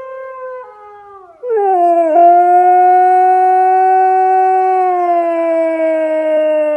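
Siberian husky howling along with a howl played on a phone: a quieter howl at first, then from about a second and a half in one long, loud howl that slowly falls in pitch.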